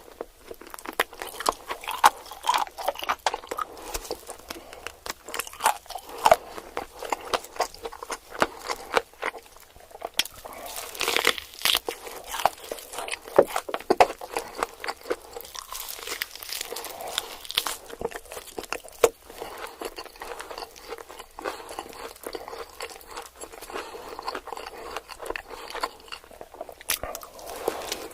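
Close-miked eating of fried fast food: crunchy bites and steady chewing, with many sharp crackles throughout.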